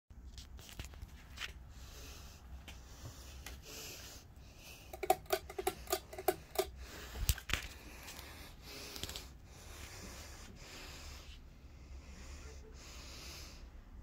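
Tropos Air Reno ceiling fan running among other spinning fans, a steady low hum with scattered light clicks. About five seconds in, a quick run of about seven short pitched sounds stands out as the loudest part, followed by a single sharp knock.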